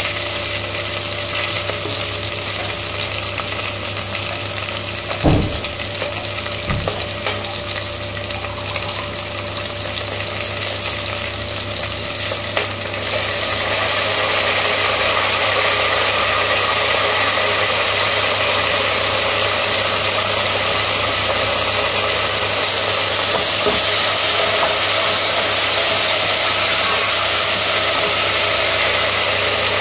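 Onions and green chillies sizzling steadily in hot oil in a large aluminium pot, over a steady low hum. There are two knocks about five and seven seconds in. The sizzle grows louder about halfway through, as chopped green herbs go into the oil.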